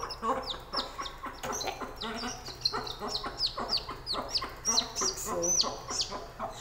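Newly hatched country-chicken chick peeping as it is picked up by hand: a fast run of short, high, falling peeps, two or three a second. A hen clucks lower alongside.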